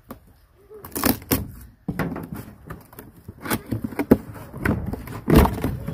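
Cardboard box being opened by hand: flaps pulled back and cardboard tearing and scraping in a string of short rips and rustles, with a heavier thump near the end.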